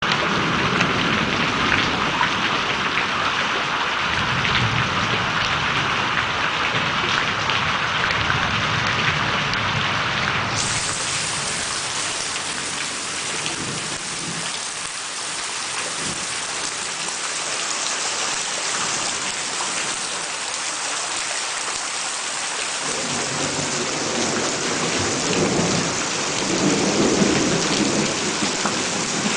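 Heavy rain pouring down in a steady hiss. About ten seconds in, the sound switches abruptly to a brighter hiss, and a low rumble swells in the last few seconds.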